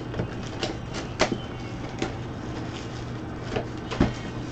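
Scattered clicks, taps and rustles of a cardboard box of football trading cards being opened and handled, the sharpest knocks about a second in and near the end, over a steady low hum.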